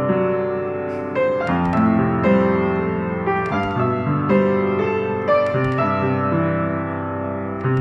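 Acoustic upright piano played solo at a slow pace: chords and melody notes struck about once a second, each ringing on into the next over a held bass.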